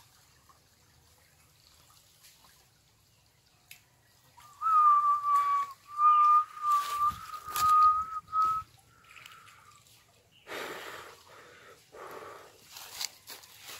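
A person whistling close by: a clear whistle held near one pitch, bending slightly up and down in a few short phrases, starts about four and a half seconds in and lasts about four seconds. Several softer bursts of rustling follow near the end.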